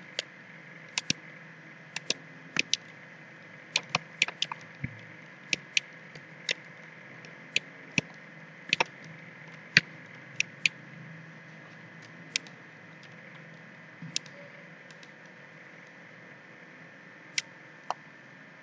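Computer mouse clicking: irregular single clicks and quick double clicks, about thirty in all, coming thickest in the first ten seconds and sparser after. Under them is a steady faint hiss with a thin high whine.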